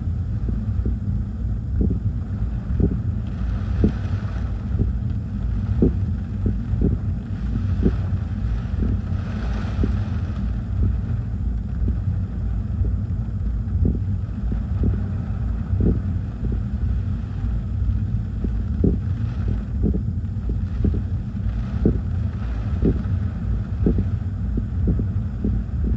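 Gusty hurricane squall wind buffeting the microphone: a steady deep rumble with frequent low thumps. Stronger gusts rush through a few times, about 4, 10 and 20 seconds in.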